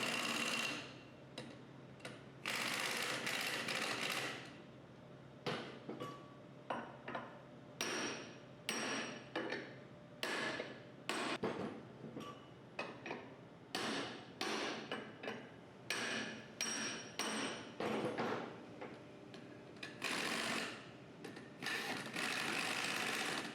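Hand tools working metal on a hydraulic pump as its plate is drawn off the housing: a string of short metallic bursts, roughly one a second, with a few longer stretches of the same clatter.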